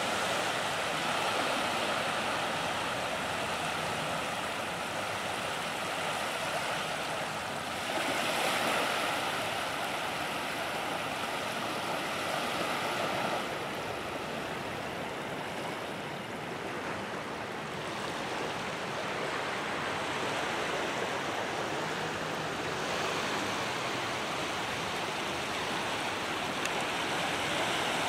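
Small, gentle sea waves washing in over a shallow, flat sandy beach: a steady hiss of water that swells louder about eight seconds in and eases again after about thirteen.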